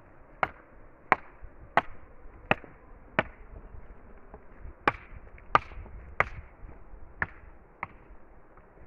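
A hammer knocking on stone about ten times, in a steady beat of roughly one blow every 0.7 s, with a short pause partway through.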